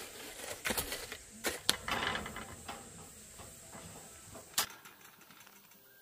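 Steel shovel scraping and slapping wet concrete into a wooden slab form, with a cluster of scrapes and knocks in the first two seconds. Fainter tool sounds follow, then one sharp click a little after four and a half seconds.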